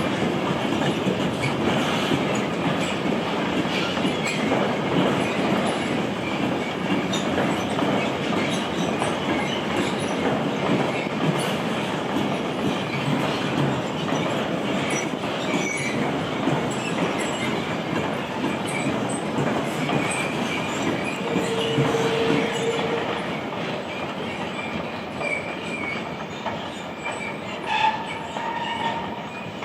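Freight train of empty car-transport wagons rattling and clattering steadily past, with short wheel squeals now and then. A sharp squeal comes about two-thirds of the way through and another near the end, as the clatter begins to fade.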